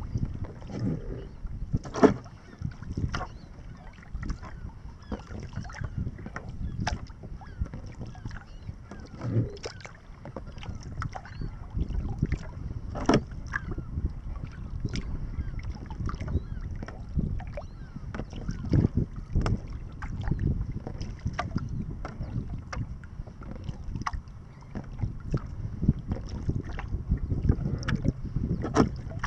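Wooden kayak being paddled: irregular splashes and drips of paddle strokes and water slapping the hull, with scattered sharp clicks, over a low rumble of wind on the microphone.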